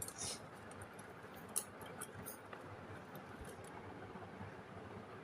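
A few faint, sharp clicks and taps, the loudest about one and a half seconds in: the UPS's freshly oiled power push switch being pressed and the unit handled as it is switched on.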